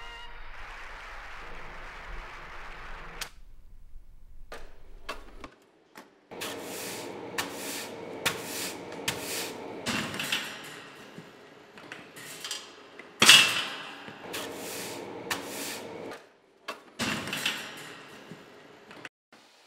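Metal wire roll-cage trolley rattling and clanking as it is gripped and wheeled on its casters over a hard floor, with repeated clattering and one loud clank about two-thirds of the way through.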